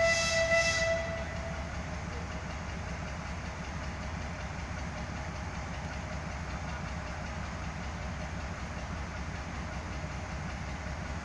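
A narrow-gauge diesel locomotive sounds a short horn blast, a steady multi-tone note lasting about a second and a half, then its engine runs on with a steady low rumble.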